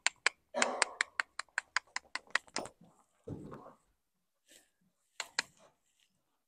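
Rapid run of sharp tongue clicks, about six a second for under three seconds: clucking, the usual cue to urge a horse to move forward. Then a brief low shuffling sound and two more clicks near the end.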